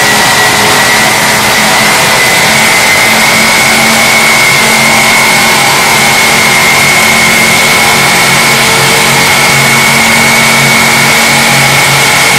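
Automatic tank polishing machine's abrasive discs running against a stainless steel tank shell: a loud, steady grinding hiss with a steady high whine and a lower motor hum that comes and goes.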